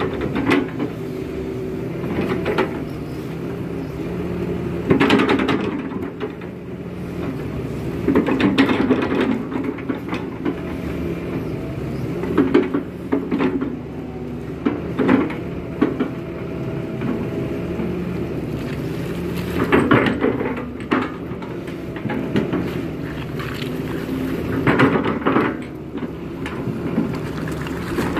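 Kato HD512 crawler excavator working: its diesel engine runs steadily, with a louder surge of engine and hydraulic noise every three to five seconds as the boom lifts, swings and dumps a bucket of wet mud.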